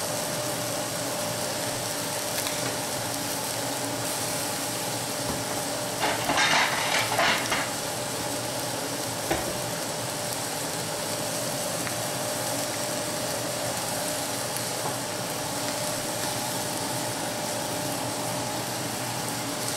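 Spice-crusted chicken breast sizzling in a dry frying pan, a steady frying hiss as the second side blackens. A brief louder burst of noise comes about six seconds in.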